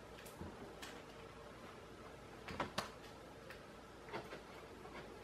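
Faint handling noises: a few short rustles and clicks, the loudest pair about two and a half seconds in, over a faint steady hum.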